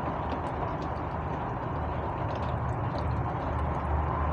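Steady rain falling, with scattered drip ticks and a low wind rumble on the microphone that grows stronger about halfway through.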